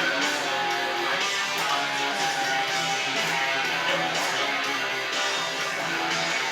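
Music: guitar-driven track with strummed and plucked guitar, playing steadily.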